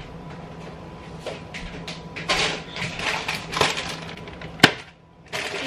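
Kitchen clean-up handling noise: scattered rustling and clatter of items being picked up and put away, with a sharp knock near the end.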